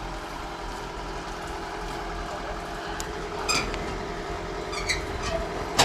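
Kubota DC-105 combine harvester's diesel engine running steadily, with a few sharp metallic clinks about three and a half and five seconds in and a louder click near the end.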